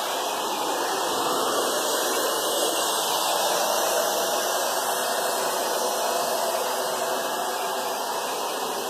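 Hot-air blower running steadily, an even rushing hiss typical of the heat used to soften vinyl film while wrapping it.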